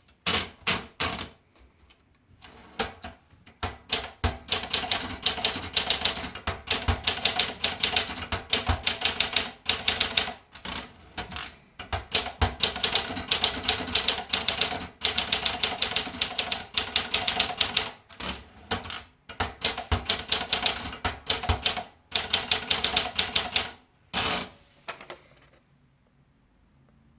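Olympia Traveller portable manual typewriter being typed on: quick runs of sharp key strikes broken by short pauses, the typing stopping near the end.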